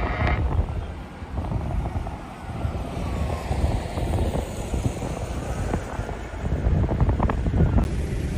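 Wind buffeting the microphone outdoors in a storm: a loud low rumble that rises and falls in gusts, with an abrupt change in the sound near the end.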